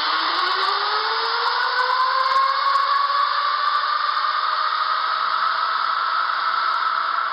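Go-kart's small petrol engine running, its pitch rising over the first few seconds as the kart accelerates away, then holding steady.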